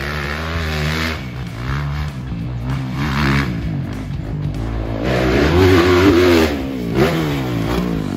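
Motocross bike engine revving hard and dropping back several times as the rider works through the gears on the track, loudest about five to six seconds in.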